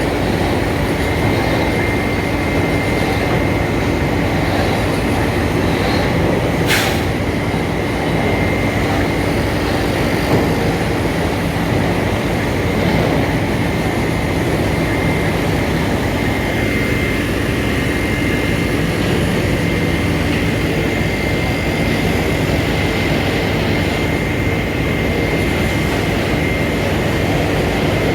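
Heavy diesel engines of dump trucks and an excavator running steadily, with a short hiss about seven seconds in.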